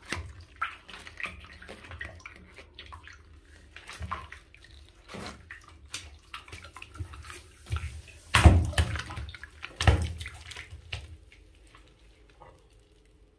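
Hands pressing and rubbing a large water-filled balloon packed with Orbeez water beads, making wet squishing and sloshing as the beads and water shift inside. The handling is irregular, with two louder pushes about eight and ten seconds in, and it fades toward the end.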